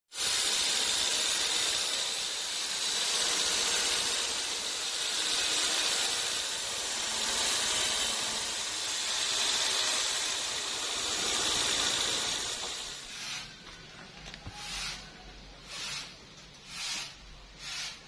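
Band sawmill blade cutting through a mahogany log: a steady high hiss that swells and eases slowly, stopping about 13 seconds in. After that comes a low rumble with short rushing noises about once a second.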